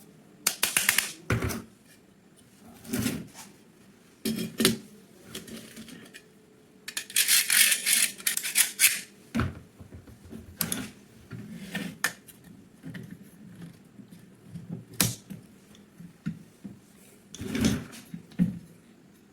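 Irregular mechanical clicks and clacks, like gun parts being handled and worked, with a longer rasping scrape about seven seconds in.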